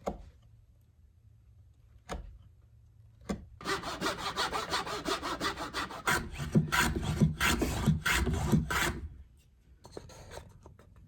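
Hand saw cutting through an elm board with quick back-and-forth strokes, about three a second, starting a few seconds in and stopping near the end. A few light knocks come before the sawing.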